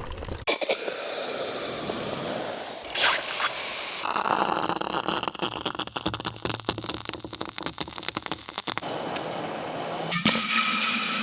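Very hot metal reacting with water: a hissing sizzle for the first few seconds, then dense crackling and popping from about four seconds in. About ten seconds in, a new recording starts with a steady whine over the hiss.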